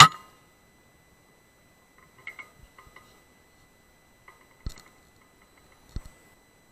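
A single sharp crack of a Weihrauch HW100 PCP air rifle firing, picked up by the scope's built-in microphone, with a short ringing after it. Faint clicks follow, with two light knocks later on, over a faint steady high electronic tone.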